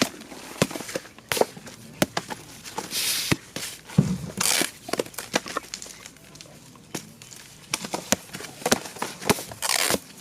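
Hand work on sky-shot firework parts: irregular sharp knocks and clicks of pieces being set down and handled, with a few brief rustles and swishes of paper.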